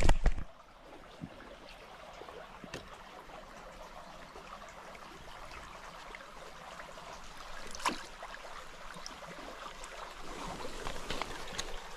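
Creek water running steadily. A loud low thump comes right at the start, and a single sharp click near eight seconds.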